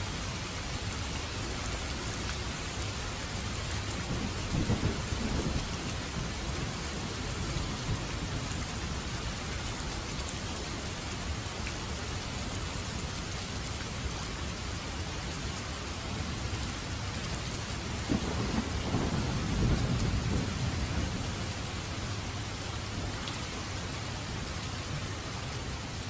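Steady rain falling as a constant hiss, with two low rolls of thunder: a short one about five seconds in and a longer one about two-thirds of the way through.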